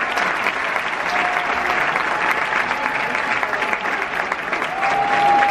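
Arena audience applauding steadily, a dense patter of many hands clapping, with a single long high note held over it near the end.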